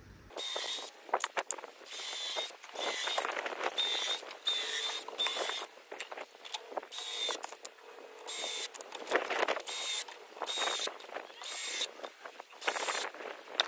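Cordless drill running in about a dozen short bursts, each a high motor whine, as it bores holes into wooden boards.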